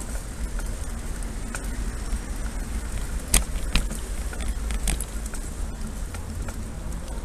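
Bicycle riding over stone paving, with wind rumbling on the bike-mounted camera's microphone and scattered clicks and rattles as the bike jolts, the sharpest few between about three and five seconds in.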